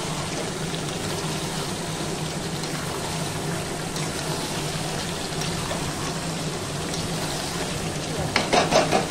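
Chicken and potato pieces frying in oil in a kadai with a steady sizzle; the masala has been fried down until the oil separates. About eight seconds in, a louder, splashier burst of sizzling as a little water goes into the hot pan.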